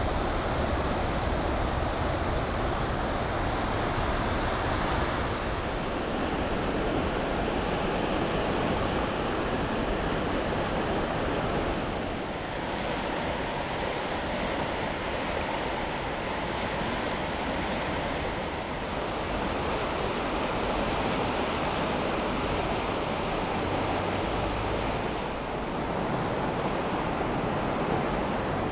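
River in spate: muddy floodwater rushing steadily through a concrete-walled channel, with wind buffeting the microphone.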